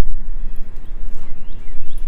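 Footsteps walking on a dirt trail, over a steady low rumble on the microphone, with a few short chirps between about one and two seconds in.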